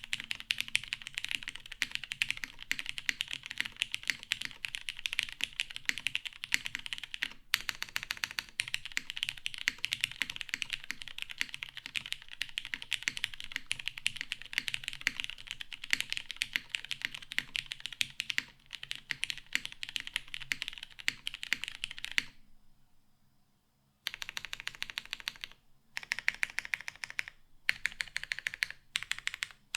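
Fast typing on a mechanical keyboard with lubed vintage Cherry MX Brown tactile switches on an FR4 half plate, under GMK doubleshot keycaps: a dense, even stream of keystrokes. About three quarters of the way through the typing stops for under two seconds, then resumes in shorter bursts with brief gaps.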